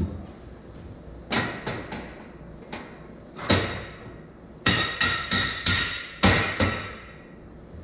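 Steel square-tube frame struck about a dozen times with sharp metallic knocks, each leaving a short ring: a few spaced knocks, then a quicker run of about seven in the second half.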